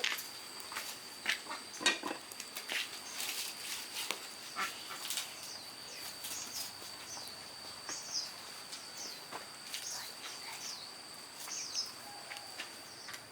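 Insects, crickets, droning on one steady high note, with scattered sharp clinks and short high chirps over it, most often in the first half.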